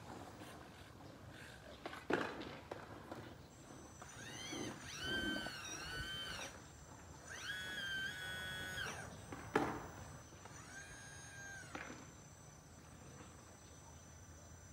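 Electric hydraulic pump of a radio-controlled model excavator whining in three spells, its pitch swooping up and down as the controls are worked, with a thin steady high electronic whine underneath. Two sharp knocks sound, one about two seconds in and one near the middle.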